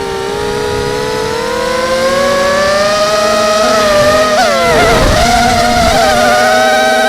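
QAV250 racing quadcopter's brushless motors and propellers whining in flight. The pitch climbs over the first few seconds as the throttle rises, wavers and dips briefly about two-thirds of the way through, then holds steady and higher.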